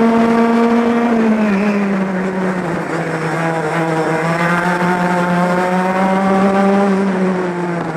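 Two-stroke racing kart engine running hard at high revs, heard onboard. About a second and a half in its pitch drops as the kart slows, and it holds a lower, slightly wavering note through a tight hairpin.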